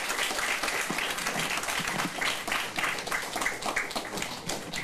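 Audience applauding: many people clapping steadily together, thinning a little near the end.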